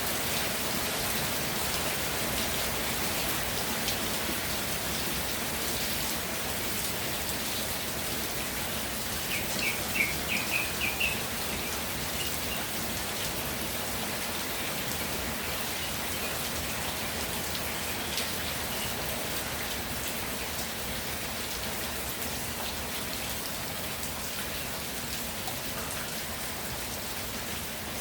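Steady rain falling on the ground and surfaces around a village house. About ten seconds in, a brief run of about six short high chirps stands out over the rain.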